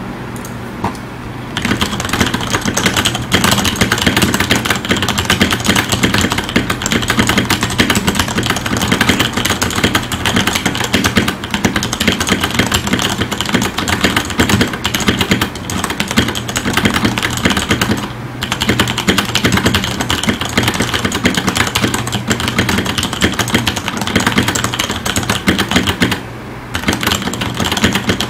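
Continuous typing on a KBTalking ONI mechanical keyboard with tactile Cherry MX Brown switches: a dense stream of keystrokes. It starts about a second and a half in and pauses briefly twice, about two-thirds of the way through and near the end, over a steady low hum.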